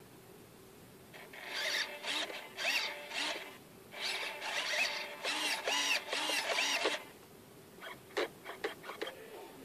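Control-surface servos in an RC glider running, a whir that rises and falls in pitch in two runs of a few seconds each, then a few short twitches near the end.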